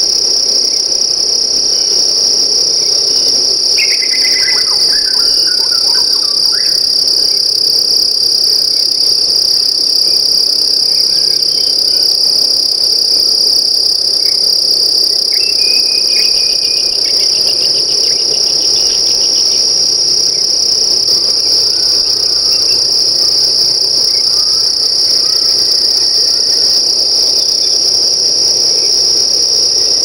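Insects trilling in a loud, steady, high-pitched chorus that never breaks. A brief call falling in pitch comes through about four seconds in, and a short chirp follows about halfway.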